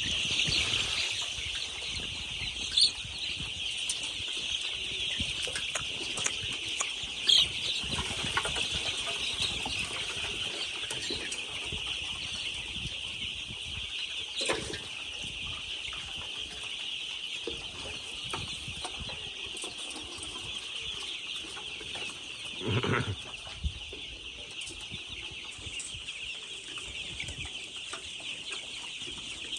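A large flock of egg-laying hens clucking together in a poultry house, a steady dense chorus. A few sharp knocks stand out, and about 23 seconds in comes one louder, lower call.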